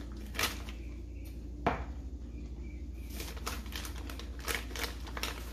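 Plastic bag of powdered sugar crinkling in scattered rustles as it is handled, with one sharp click just under two seconds in.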